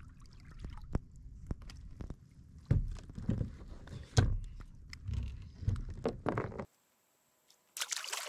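Knocks and thumps of a fish and fishing gear being handled on a plastic sit-on-top kayak, over a low rumble. After a sudden cut, a short splash near the end as a released fish drops into the water.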